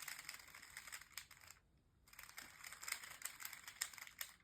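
Plastic 3x3 Rubik's Cube layers being turned rapidly: a faint, irregular run of small clicks and rattles, with a brief pause about a second and a half in.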